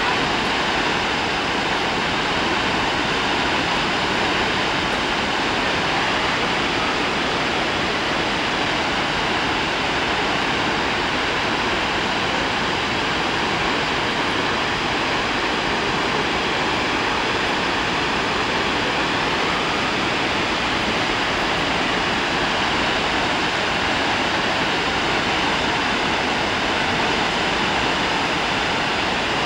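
Snoqualmie Falls: a large waterfall in heavy flow, giving a steady, unbroken rush of falling water.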